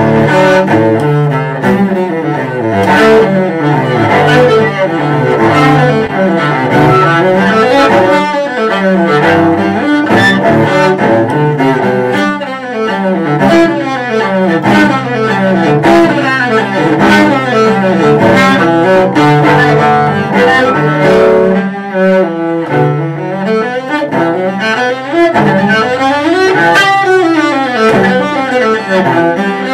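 Solo cello, bowed, playing a fast passage of quick scale-like runs that rise and fall.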